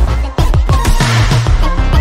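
Electronic background music with heavy bass and a steady drum beat.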